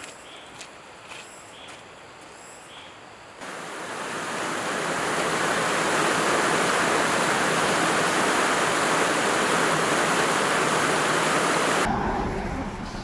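Faint footsteps on a dirt trail, then a small mountain stream rushing and splashing over rocks in a steady cascade, cutting in suddenly about three seconds in and dominating most of the clip. Near the end it cuts to a low vehicle rumble by a road.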